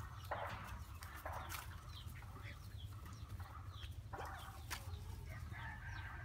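Two dogs play-fighting on dry grass and leaves, with short rustling scuffles a few times, while short high chirping animal calls come and go.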